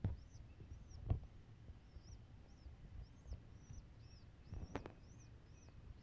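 Pigeon squabs cheeping: short, high-pitched begging peeps repeated about two to three times a second. A few soft knocks and bumps come in between, one at the start, one about a second in and a longer one near the end.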